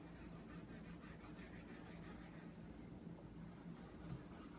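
Chalk pastel stroked over construction paper: faint, rhythmic scratchy rubbing at about four strokes a second, easing off briefly past the middle.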